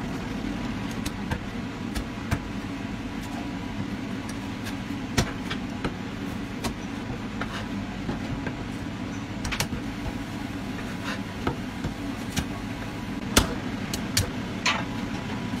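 Chinese cleaver chopping roast duck on a thick wooden chopping block: sharp, irregular knocks, the loudest about five seconds in and near the end, over a steady low hum.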